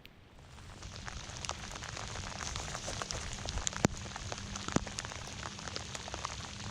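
Rain falling steadily, an even patter with scattered sharper drop ticks; it swells from quiet during the first second, then holds steady.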